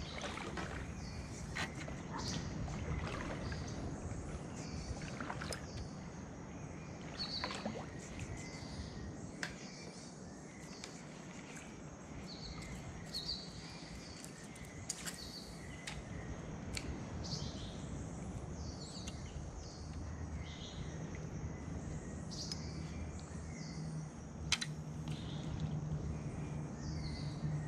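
Birds calling from the riverbank vegetation: short high chirps repeated many times over a steady outdoor background, with a few sharp clicks in between.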